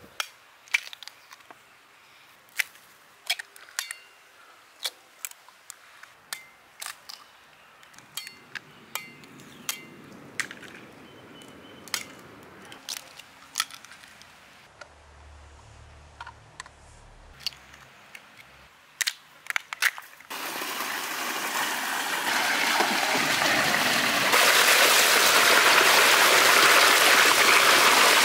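Eggs being cracked one after another, a sharp crack every second or so. About twenty seconds in, water starts gushing from a pipe into a steel pot, growing louder and becoming the loudest sound.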